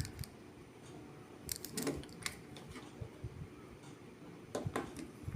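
Light clicks and taps of the opened molded case circuit breaker's plastic and metal internal parts being handled and moved, in two small clusters, about one and a half seconds in and again near the end.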